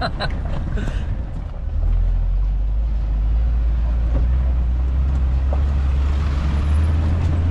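Jeep Wrangler's engine and drivetrain heard from inside the cab on a dirt trail: a steady low drone that eases off about a second in, then picks back up and holds from about two seconds in.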